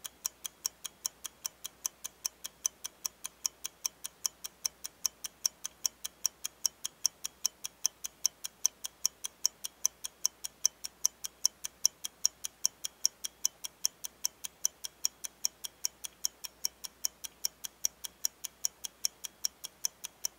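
Steady, evenly spaced ticking, about four sharp ticks a second: a clock-tick sound effect laid over a time-lapse.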